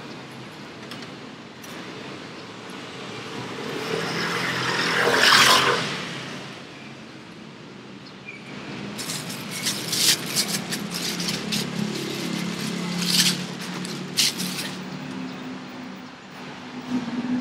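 Street traffic: a passing vehicle swells to its loudest about five seconds in and fades, then a run of sharp clicks and scrapes sounds over a low engine hum.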